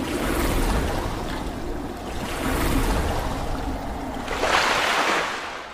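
Water splashing and rushing sound effect that swells three times, the biggest splash about four and a half seconds in, then starts to fade near the end.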